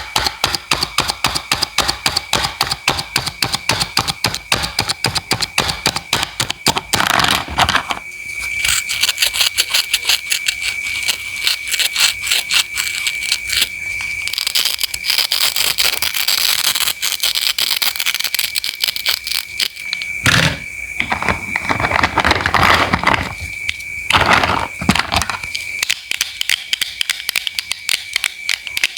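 Knife chopping fruit and vegetables on a cutting board in fast, even strokes, about five a second, with a thin steady high-pitched tone underneath. A few longer crunching or scraping cuts break in about a quarter of the way in and again past the middle.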